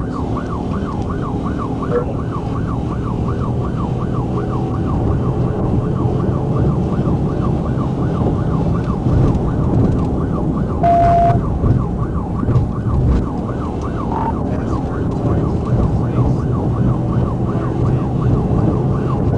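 Police car siren on a fast yelp, rising and falling about three times a second, over heavy engine and road noise from the moving patrol car. A brief steady beep cuts in about eleven seconds in.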